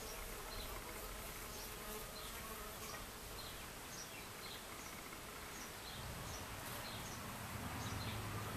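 Bees buzzing among flowers, their hum growing louder from about two-thirds of the way in as one comes close. A short high chirp repeats about twice a second in the background.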